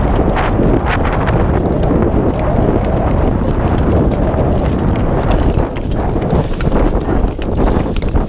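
Long-track speed-skate blades clicking and scraping on the ice as a group of skaters strokes along, a quick uneven clatter of strokes over steady wind rumble on the microphone.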